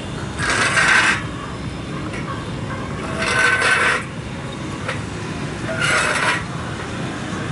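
Three short rasping scrapes, each about half a second to a second long, over a steady background hum of street traffic.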